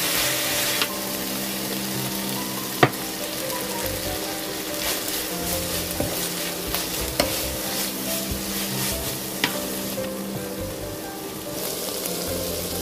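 Garlic scapes and dried anchovies sizzling in a nonstick frying pan as a wooden spatula stirs and tosses them, with a few sharp clicks of the spatula striking the pan. The sizzle thins near the end, with the heat turned off.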